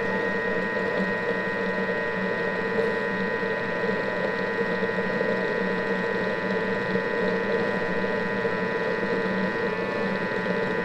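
Thermomix food processor running steadily at speed 4, whipping aquafaba with icing sugar into a thick, meringue-like cream, with a steady motor whine.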